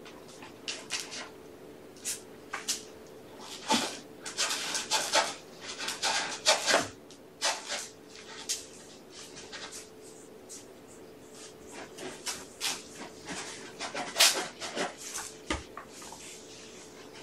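Cats and kittens moving about and playing on a carpeted floor and around a plastic track-ball toy: irregular short rustles, scuffs and clicks. A faint steady hum runs underneath.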